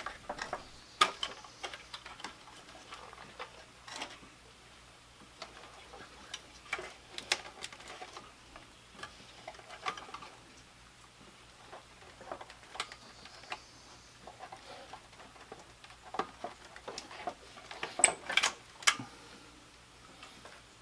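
Irregular sharp clicks and light metal and plastic knocks from hand tools and parts being worked on a car's front end, with a small cluster of clicks near the end.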